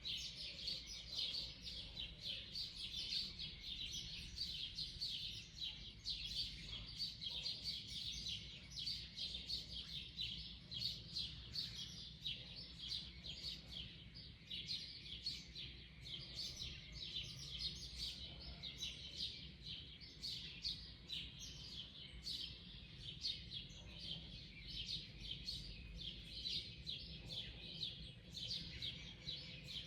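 Wild birds chirping and singing, many short, quick calls overlapping without a break, over a faint low rumble.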